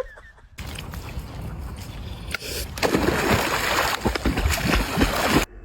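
Water sloshing and splashing in quick irregular strokes, louder from about halfway and cutting off suddenly near the end.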